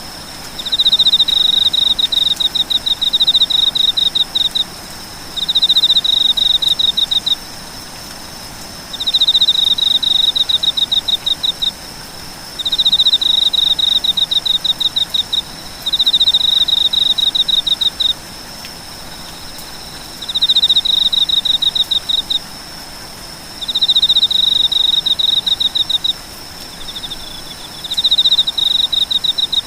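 An insect calling in repeated bouts of rapid, evenly pulsed high-pitched chirps, each bout lasting two to four seconds with short pauses between, eight bouts in all. A steady high thin whine and a faint background hiss run underneath.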